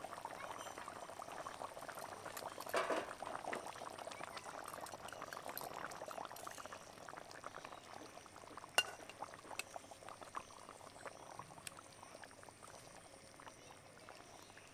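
Mustard gravy with hilsa pieces simmering in a covered pan: a steady crackle of small bubbles popping, loudest about two to three seconds in and slowly fading. A few sharp clicks come about nine to ten seconds in.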